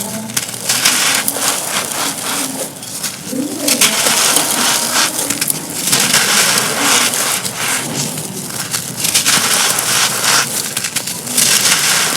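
Dry, dusty cones crumbling and being crushed, a dense, crisp crackle of many small breaks.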